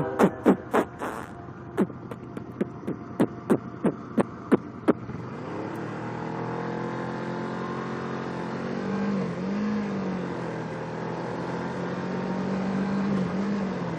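Railroad crossing bell ringing in sharp, evenly spaced dings that thin out and stop about five seconds in. After that a steady engine hum continues, dipping and recovering in pitch twice.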